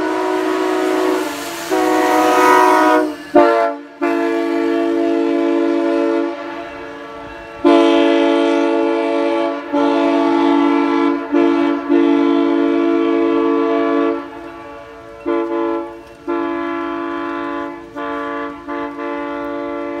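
Nathan Airchime K3HA three-chime train air horn blowing a run of long, loud chord blasts with short breaks between them, the chord changing a few times.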